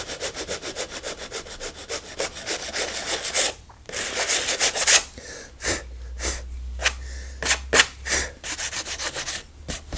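Nail file sanding a dried acrylic texture paste patch on a stretched canvas smooth, scraping in quick back-and-forth strokes, about six a second. After a brief pause a little past three seconds in, it goes on in slower, separate strokes.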